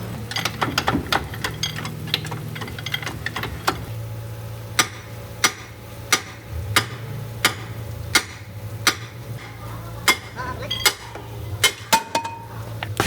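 Hand tools clinking and tapping on the steel parts of a wheel loader's wheel hub: irregular sharp metallic clicks, about one or two a second, over a steady low hum.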